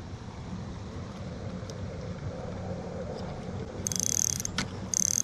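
Fishing reel being cranked, its gears whirring steadily as line is wound in, with two short higher rasps near the end.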